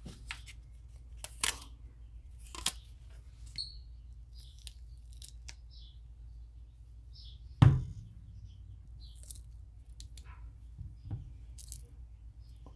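Hands unclamping and opening a silicone lure mold: rubber bands coming off the wooden clamp boards, the silicone halves pulled apart, and the cured clear resin lure peeled out, making scattered clicks and snaps with one loud thump about two-thirds of the way through. A low steady hum runs underneath.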